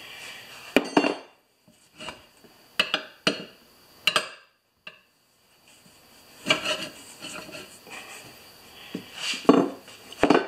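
A series of irregular metallic clanks and knocks as a small 15x6 tractor tire is worked by hand onto a steel rim, the tire iron and rubber bead knocking against the rim.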